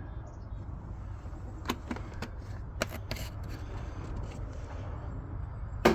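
Handling noise: a few light clicks and knocks over a steady low rumble, with a sharper click near the end.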